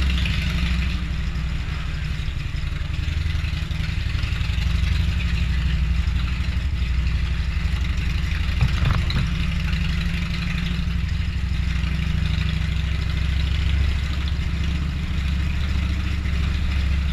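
Motorcycle engine running steadily as the bike is ridden slowly, with a deep even pulse, and one brief knock about halfway through.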